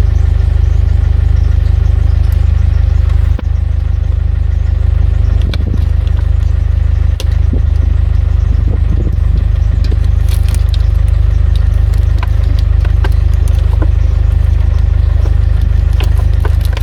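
Car engine and road noise heard from inside a moving car: a loud, steady low drone, with a few scattered clicks and knocks.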